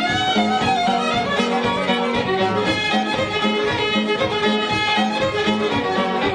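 Irish-style fiddle music with a steady rhythmic accompaniment, a lively tune with quick bowed notes over a regular beat.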